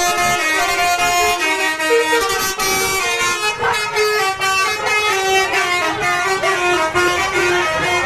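Indonesian bus 'telolet' multi-tone air horn playing a quick tune, the notes stepping up and down without a break.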